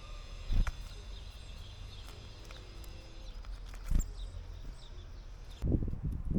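Small wild birds at a garden seed feeder: a few faint short chirps over a low rumble, two dull thumps about half a second and four seconds in, and from near the end a run of louder low knocks and rustles close to the microphone.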